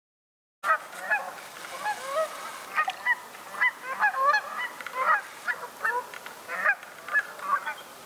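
A flock of Canada geese honking, many short calls overlapping, starting about half a second in and thinning out near the end.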